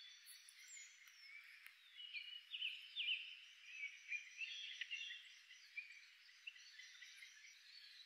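Small finches twittering: many short high chirps and trills, busiest through the middle and thinning out after about five seconds, over a faint steady background hiss.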